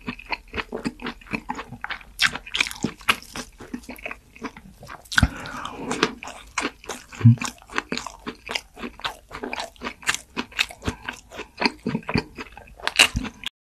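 Close-miked crunching and chewing of crisp food, with many sharp bites and crunches in quick, irregular succession. It stops abruptly just before the end.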